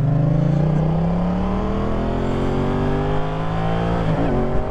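Yamaha FZ-07's 689cc 270-degree crossplane parallel-twin engine, fitted with an Akrapovič exhaust, accelerating from a pull-away. Its pitch rises steadily for about four seconds, then breaks and drops near the end as the rider shifts up a gear with the clutch.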